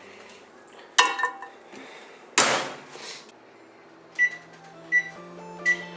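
Microwave oven being shut and set: a sharp knock about a second in and a louder clunk a little after two seconds. Then come three short high keypad beeps over a low steady hum.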